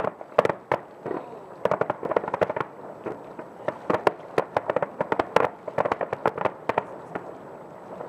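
Fireworks display: aerial shells bursting in rapid volleys of sharp bangs, many overlapping, thinning out in the last second or so.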